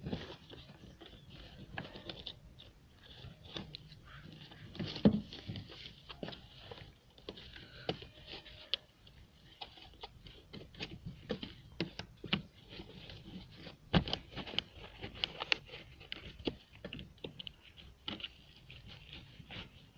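Hands working a Renault Kwid's rubber door seal and plastic sill trim while routing a wire under them: irregular rustling and scraping with small clicks and knocks. A louder knock comes about five seconds in and another about fourteen seconds in.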